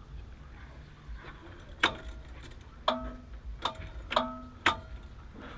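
A series of sharp metallic clicks at an uneven pace, each with a brief pitched ring, starting about two seconds in.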